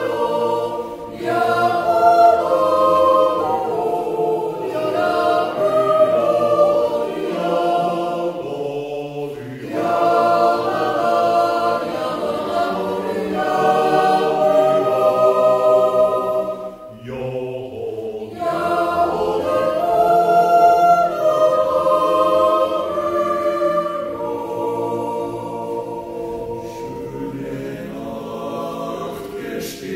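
Swiss yodel club choir, mostly men's voices, singing a cappella in sustained chords, phrase by phrase, with a brief pause about halfway through.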